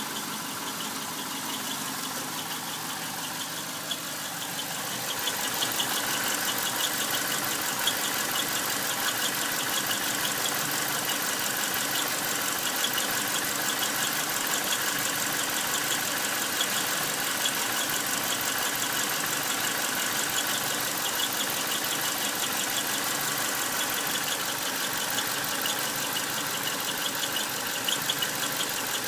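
Subaru EJ251 2.5-litre flat-four idling with a steady high squeal from near the transmission flange, louder from about five seconds in. The squeal is not from the belts, tensioners, accessories or clutch release bearing; the owner wonders whether it is crankshaft bearing damage.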